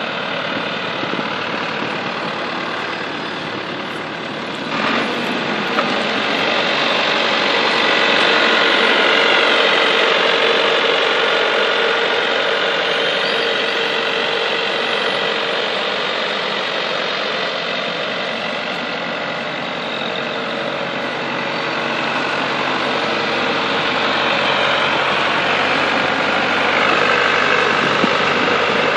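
Wirtgen 500 cold milling machine's diesel engine running steadily as the machine is driven. A short knock comes about five seconds in, after which it runs louder.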